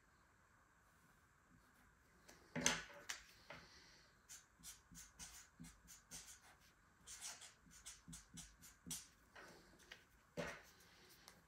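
Marker pen writing on a sheet of paper: a run of short, faint scratching strokes, a few a second, as an arrow and letters are drawn. A louder click comes about two and a half seconds in and another near the end.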